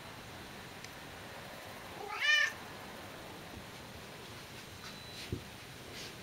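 A Bengal cat gives one short meow about two seconds in, its pitch rising and then falling within half a second. A soft knock follows a few seconds later.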